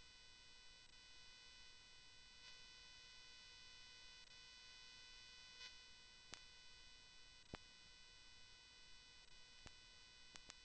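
Near silence: only a faint steady whine of several evenly spaced tones, with a few faint clicks in the second half.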